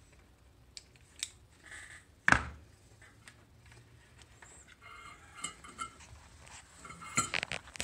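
Scissors snipping short pieces of plastic heat-shrink tubing: a few sharp clicks, the loudest snap about two seconds in, then light handling and clicking of small pieces near the end.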